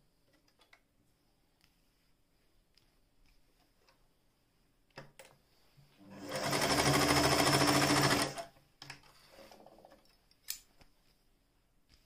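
Singer 416 electric sewing machine running at speed for about two seconds, starting around the middle and stopping abruptly, stitching a zigzag seam through fabric. A few light clicks come before and after the run.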